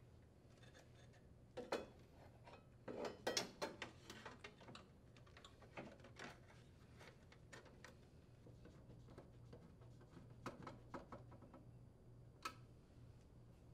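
Sheet-metal access cover of a heat pump's control box being lowered and fitted into place: scattered light metallic clicks and taps, with a cluster of louder knocks about two to four seconds in.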